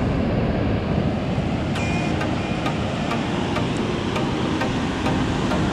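Ocean surf and wind on the microphone: a steady, dense rush of noise strongest in the low end, with faint regular ticks over it.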